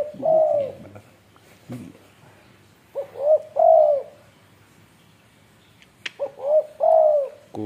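Spotted dove cooing. Three phrases come about three seconds apart, each two short notes followed by a longer arched coo.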